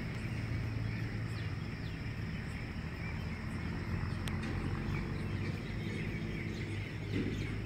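Night-time outdoor ambience: a steady low hum under a continuous faint insect-like drone, with a few short faint chirps. Louder low noise comes in near the end.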